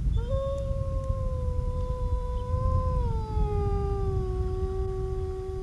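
A gray wolf howling: one long howl that rises briefly at the start, holds steady, then drops in pitch about three seconds in and holds at the lower note. A steady low rumble runs beneath it.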